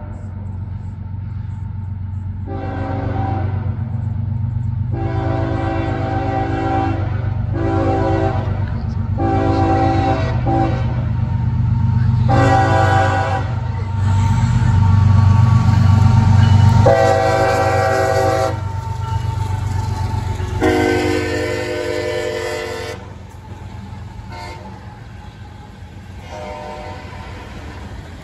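Freight train's horn sounding for a grade crossing in the long, long, short, long pattern, then three more blasts, over the deep rumble of the diesel locomotives' engines. The rumble grows loudest as the locomotives pass, then falls away near the end to the quieter rolling of freight cars.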